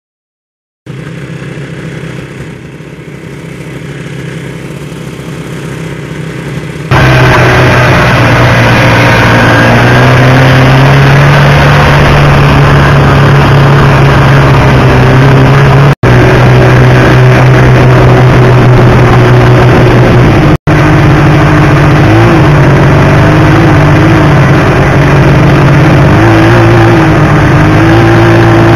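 Snowmobile engine running at speed, loud and close, heard fainter for the first few seconds and then full from about seven seconds in. Its pitch holds mostly steady and wavers a little near the end. There are two brief dropouts.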